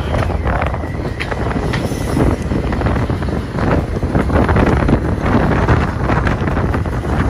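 Wind buffeting the microphone over the road and engine rumble of a moving camper van, a steady low roar with irregular gusts.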